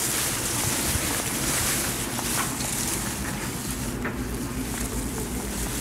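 Wind buffeting the microphone, a steady rushing hiss with low rumble, with a few faint rustles and clicks from movement in the grass.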